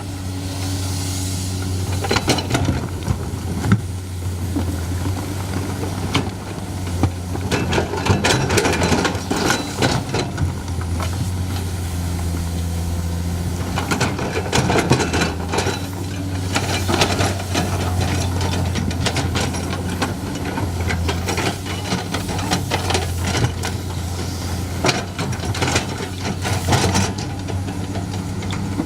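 Excavator's diesel engine running steadily, with frequent knocks and clatter over it.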